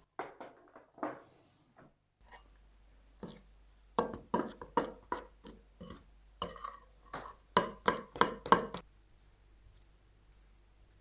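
Kitchenware being handled: irregular clinks and knocks of dishes, glass and utensils, a few near the start and then a quick run of them in the middle of the stretch.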